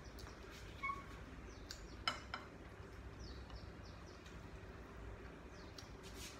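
Utensils clicking against a ceramic bowl twice, close together, about two seconds in, over a low steady hum, with faint high bird chirps repeating every second or two.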